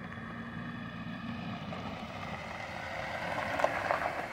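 Jeep Wrangler Sport driving slowly up a gravel road toward the listener, its engine and tyres growing louder as it comes close, with a short crunch of tyres on gravel near the end.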